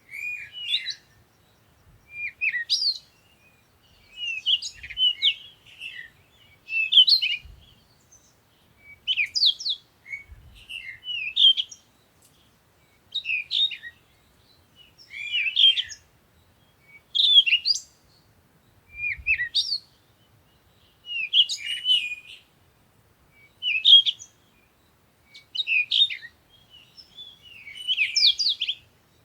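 Birdsong: a bird sings a short, chirpy phrase over and over, one about every two seconds.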